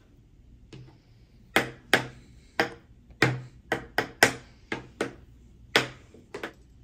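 Kitchen knife chopping hard-boiled eggs on a thin flexible cutting mat: about a dozen sharp, unevenly spaced knocks of the blade, starting about one and a half seconds in.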